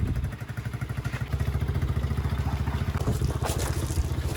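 Engine idling steadily with an even, fast putter, just after being started.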